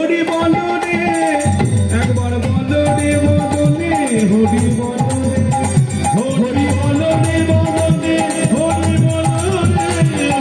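Live Bengali kirtan music: flute and keyboard hold the melody over khol drums whose deep bass strokes swoop in pitch, with a steady high jingling rhythm.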